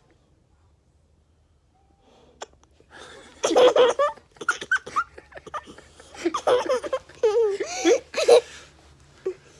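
A young girl hiccups once, then from about three seconds in giggles and laughs in bursts, with high squealing rises and falls, as she is tickled.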